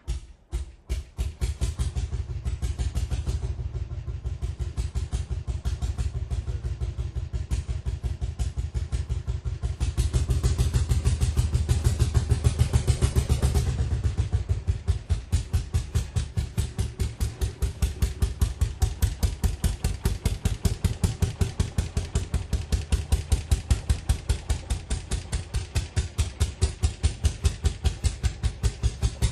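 A vintage engine running at a steady, fast, even beat that starts suddenly and grows somewhat louder for a few seconds partway through.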